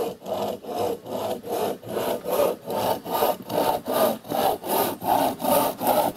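Hand saw cutting through a wooden board in steady back-and-forth strokes, about three a second, growing a little louder toward the end.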